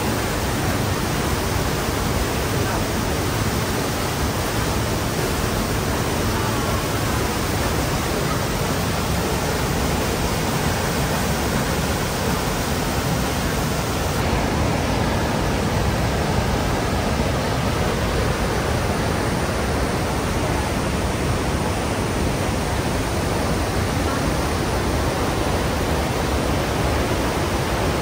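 The Rhine Falls, a large, powerful river waterfall: a steady, loud rush of heavy water pouring and crashing over the rocks.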